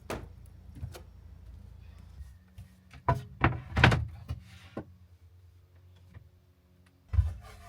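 Pine slats knocking and thudding as they are handled: a sharp knock at the start, a cluster of louder thuds about three to four seconds in, and another thud near the end.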